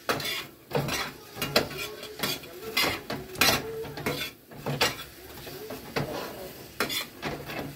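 Kitchen utensils clinking and scraping against cookware in irregular knocks, one or two a second.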